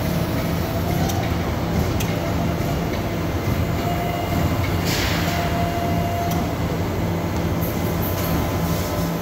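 CARER K12 electric forklift driving slowly, its electric drive running with a steady hum and a thin whine that comes and goes. A few sharp clicks and a short hiss about five seconds in.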